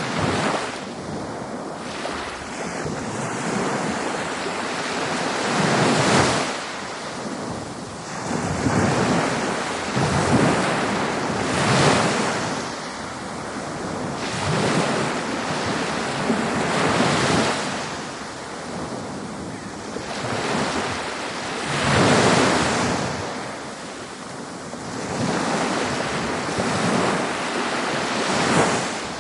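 Ocean surf breaking on a beach: a continuous wash of water that swells with each wave every few seconds and falls back between them.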